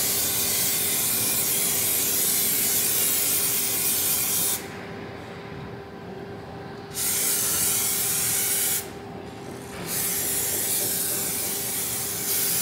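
Aerosol can of spray adhesive hissing in three long squirts. The first, already going, stops about four and a half seconds in; then come two more of about two and three seconds with short pauses between.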